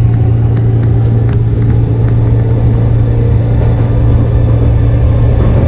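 Commuter train car interior noise: a steady low hum with rumble underneath, and a few faint clicks.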